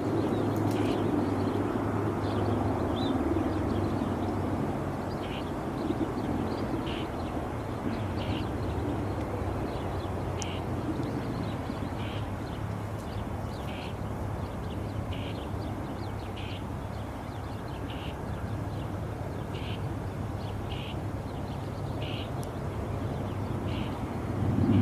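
A bird giving short, repeated calls roughly once every second or so, over a steady low rumble in the background.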